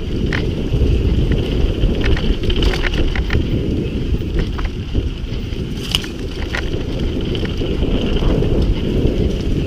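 Mountain bike riding down a dirt forest trail: wind buffeting the on-board camera's microphone as a steady low rumble, with irregular knocks and rattles from the bike going over the rough ground.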